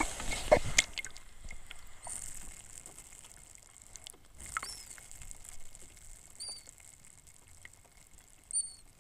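Underwater sound as heard from a camera held beneath the surface over a reef: scattered clicks and crackles with four faint short chirps spread through. It opens with a brief rush of water as the camera goes under.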